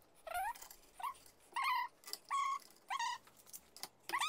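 A dog whining: a run of about six short, high-pitched whines, each rising and then holding briefly.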